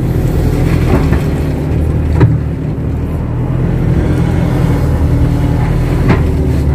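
Kato crawler excavator's diesel engine running steadily under work, with a deep even hum. A few sharp knocks stand out, the loudest about two seconds in.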